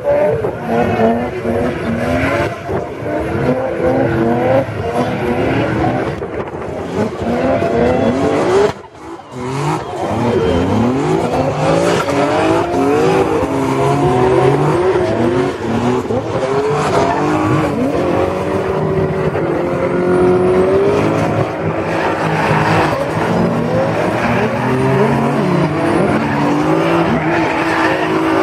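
Drift cars' engines revving hard, pitch rising and falling over and over as several cars slide, with tyres squealing and skidding on the tarmac. The level drops briefly about nine seconds in.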